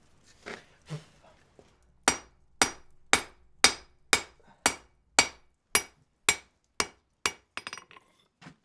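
Hand hammer striking a hot wrought-iron bar on an anvil, with a dozen sharp, ringing blows at a steady pace of about two a second, followed near the end by a few lighter, quicker taps. Two softer knocks come before the run of blows.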